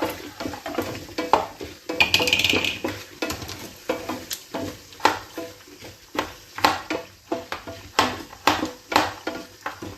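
Repeated irregular knocks and taps of a knife on a board while coconut is cut into small pieces, about one or two a second, with a brief high squeak about two seconds in.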